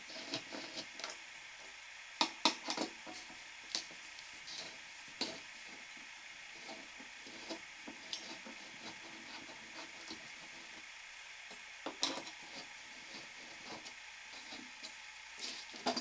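Hand screwdriver backing out the screws that hold a minifridge's wire condenser coil. Scattered light clicks and scrapes of metal, bunched a couple of seconds in and again near twelve seconds.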